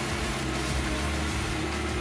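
Tractor-driven wood chipper running steadily: a low, even engine drone under continuous noise.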